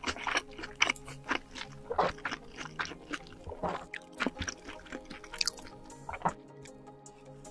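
Close-miked mukbang eating sounds: irregular wet chewing and sharp mouth clicks from eating spoonfuls of fried rice, over steady soft background music.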